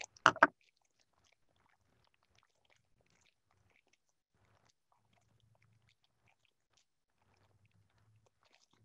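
A plastic bag of dried lentils being handled and opened: a short louder crinkle in the first half-second, then only faint scattered crinkles and clicks, close to silence.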